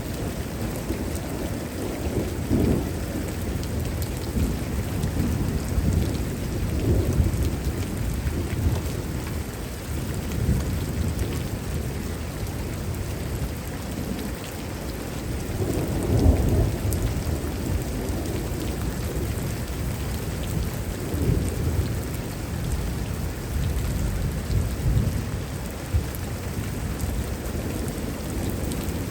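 Heavy thunderstorm: steady rain with thunder rumbling again and again, the loudest roll about halfway through.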